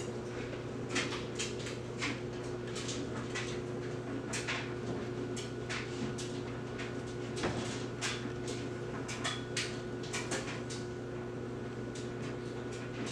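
Kitchen wall cupboard doors opening and closing and a drinking glass being handled: a string of irregular clicks and knocks, roughly one or two a second, over a steady low hum.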